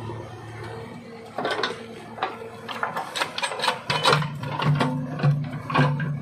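JCB 3DX backhoe loader's diesel engine running while the backhoe bucket scrapes and dumps soil and stones, giving a run of knocks and rattles from about a second and a half in. About four seconds in, the engine note steps up and grows louder as the hydraulics take load.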